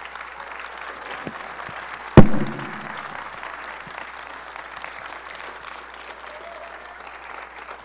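Congregation applauding steadily, with a single loud thump about two seconds in.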